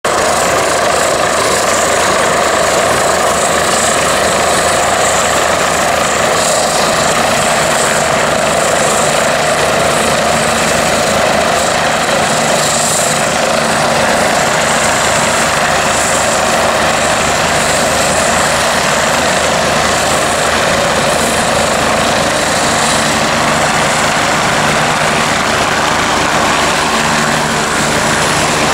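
Medical helicopter descending to land, its rotor and turbine engines making a loud, steady noise.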